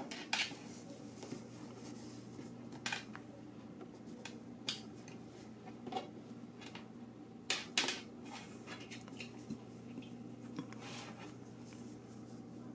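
Scattered light clicks and taps as hands work a crochet hook and yarn on a tabletop, over a steady low hum.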